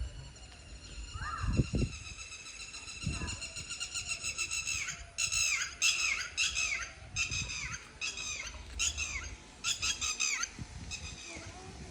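High-pitched animal cry: one long held wail, then a string of about nine short yelps that each drop in pitch, over some five seconds.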